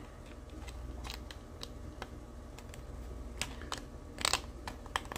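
Light clicks and taps of hard plastic model-kit parts being handled and pressed together as a small part is fitted into a plastic car body shell, with a few louder clicks in the second half.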